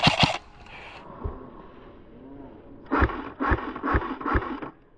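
Airsoft gun shots: a short burst right at the start, then four single shots about half a second apart near the end.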